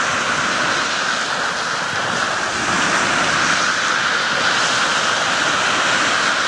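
Small ocean waves breaking and washing up over a sandy beach: a steady rush of surf.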